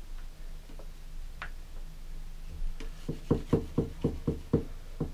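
Hands working wet tint film over a plastic car headlight: a quick run of about seven short taps, roughly five a second, about three seconds in, over a low steady hum.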